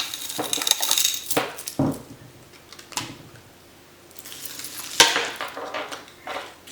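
Costume jewelry and loose beads clinking and rattling as they are handled and pulled out by hand, with a patch of clattering in the first second or so, a few scattered knocks, and a sharp click about five seconds in.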